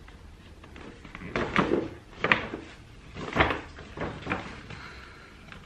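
A gift package being opened by hand: a few separate rustles and knocks of its wrapping and box.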